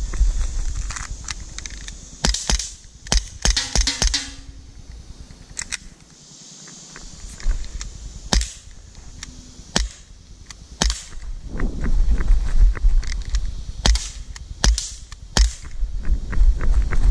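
Sig P226 CO2 air pistol firing pellets: a quick run of about half a dozen shots two to four seconds in, then single shots a second or more apart.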